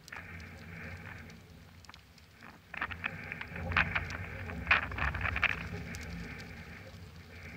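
Hoofbeats of a horse cantering under saddle on soft arena dirt: irregular dull thuds that grow louder about three seconds in as the horse passes close, with a few sharper strikes, then fade away.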